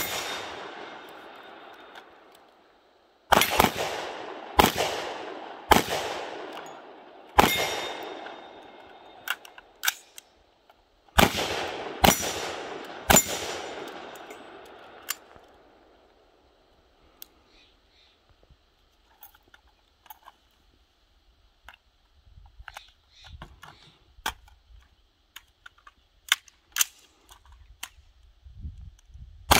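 Rifle shots fired one at a time, about eight in the first half, each trailing off over a second or two. Quieter clicks and rattles follow through the second half, the handling of the rifles during a reload drill.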